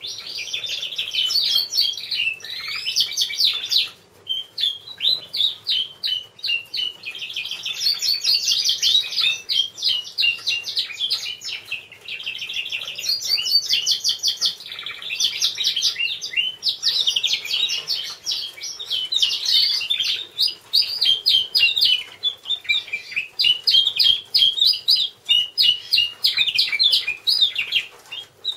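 Border canary cock singing: long runs of fast trills and rolling phrases, broken by short pauses every few seconds.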